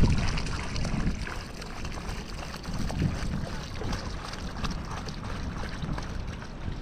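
Water pouring from a plastic jerrycan and splashing onto dry earth and straw, a steady hiss with a low rumble underneath that swells a few times.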